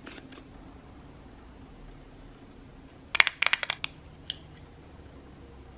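Plastic makeup compact handled with a brush: a quick run of sharp clicks and taps about three seconds in, then one more click, over faint room tone.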